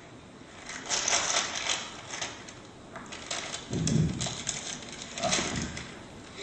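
A paper bag crinkling and rustling as it is breathed into, with two heavier puffs about four and five seconds in.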